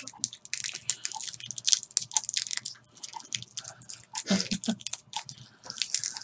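A wrapped milk chew candy being unwrapped by hand: the wrapper crinkles in quick, irregular crackles and ticks.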